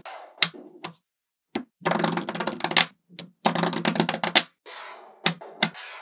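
Small metal magnetic balls clicking as they snap together and onto a slab of balls: a few sharp single clicks, and two rapid clattering runs of many clicks, each about a second long, about two and three and a half seconds in.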